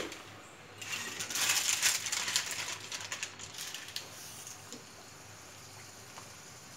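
Athirasam dough disc deep-frying in hot oil in an iron kadai: a busy crackling sizzle with many small pops. It is louder over the first few seconds, then settles to a quieter, steady sizzle.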